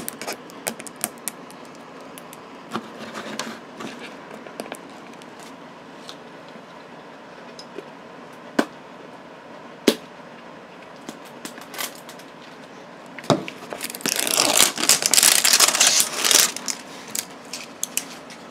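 Plastic baby-bottle-shaped toy blind packages being handled: scattered light clicks and taps, then about three seconds of loud crinkling and rustling of packaging near the end.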